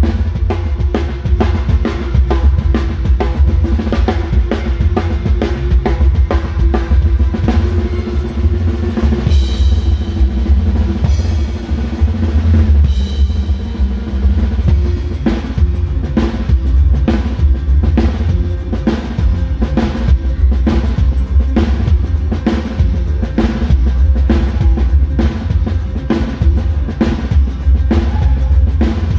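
Drum kit played live in a steady groove, with kick drum and snare hits and cymbals, over the band's music.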